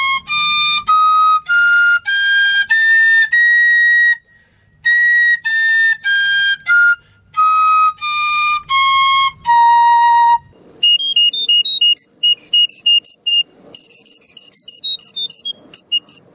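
Piccolo playing a one-octave scale: eight notes stepping up, a short pause, then eight notes stepping back down. After that come quicker, much higher notes in its top register.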